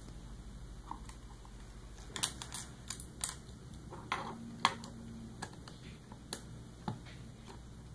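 Plastic Lego bricks clicking and rattling as small pieces are picked out of a bin and pressed together: irregular small clicks, bunched in the middle, the loudest about four and a half seconds in. A faint steady low hum runs underneath.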